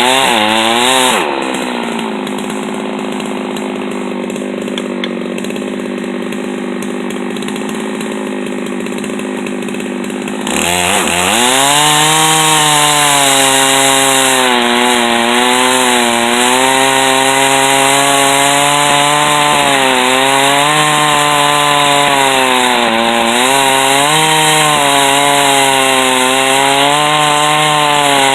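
Chainsaw mill ripping a white oak log lengthwise, the saw engine held at full throttle in the cut. For about the first ten seconds it runs quieter and steadier, then grows louder with its pitch repeatedly sagging and picking back up as the bar loads in the wood.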